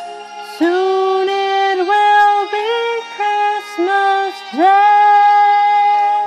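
A solo singing voice sings a short phrase of about six notes, ending on one long held note, over soft instrumental accompaniment.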